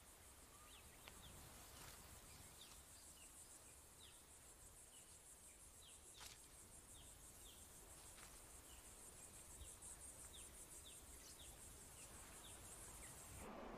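Faint natural ambience: soft, short falling chirps about twice a second over a low hiss.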